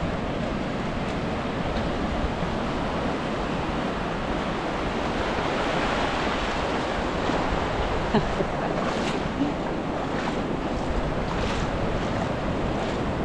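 Rough Atlantic surf breaking and washing up the beach: a steady roar of waves, swelling a little about halfway through.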